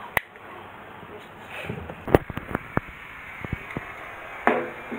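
Sharp clicks and knocks of a hard plastic toy boat built from bottles being handled, a small cluster about two seconds in, with a short voice near the end.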